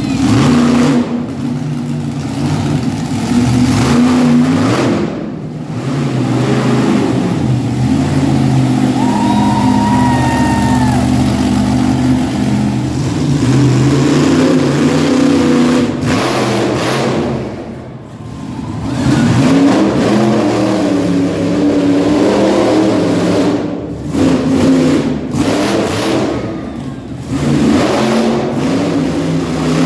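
Monster truck engine revving hard at high throttle. The revs drop off and come back up several times.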